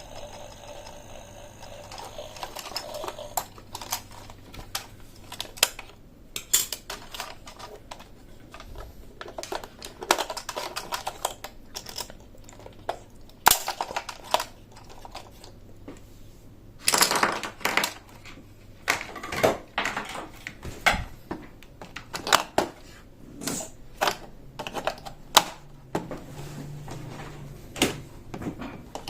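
Plastic toy pieces being handled: irregular clicks, taps and short clatters as parts of a Thomas & Friends toy playset are picked up, set down and fitted together.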